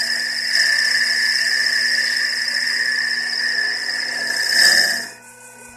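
CNC lathe making a finish pass on a spinning wooden workpiece: a steady high whine over the noise of the cut. It swells briefly about four and a half seconds in, then drops away shortly before the end as the tool pauses.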